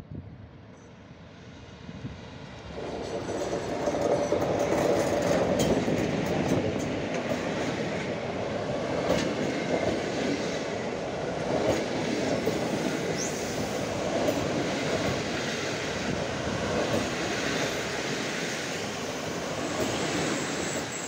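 A passenger train hauled by an EP07 electric locomotive passes close by. The rolling noise builds over the first few seconds as the locomotive arrives, then the coaches roll past steadily, with the wheels clicking over the rail joints.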